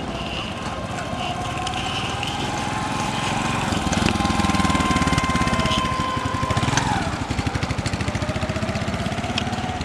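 Motorcycle engine running as the bike approaches, passes close and rides away. It is loudest about four to seven seconds in, and its pitch drops as it goes by.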